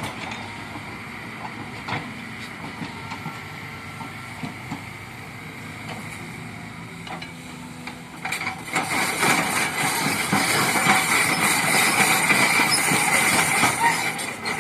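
Kobelco excavator working, its engine and machinery running steadily with occasional knocks. About eight seconds in, it gets louder and turns into a dense, rattling hiss.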